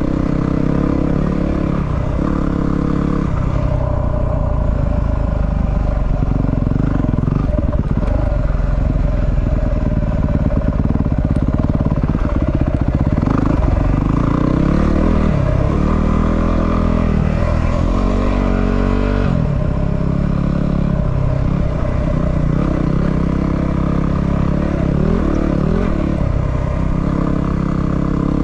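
250 cc single-cylinder dual-sport motorcycle being ridden off-road, its engine note rising and falling again and again as the throttle is opened and closed.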